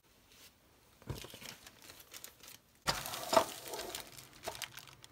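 Small parts of a dismantled die-cast toy car being handled on a surface, with light clicks and rustling from about a second in and a louder crinkly clatter around three seconds in.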